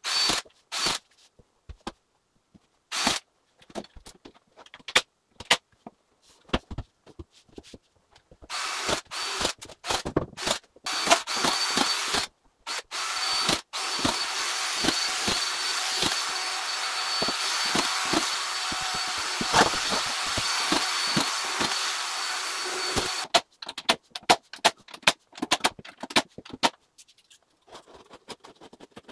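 Power screwdriver work on drywall: a motor runs steadily with a thin high whine for about ten seconds in the middle and stops sharply. Before and after it come scattered clicks and knocks from handling the tool and the boards, with choppy short runs of the tool just before the long run.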